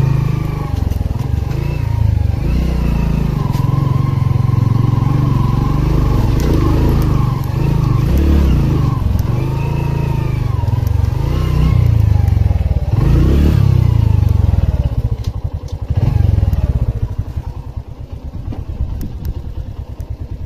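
Motorcycle engine running as the bike is ridden slowly over a rough dirt track, its pitch rising and falling again and again with the throttle. Near the end the engine sound drops away and turns quieter and uneven.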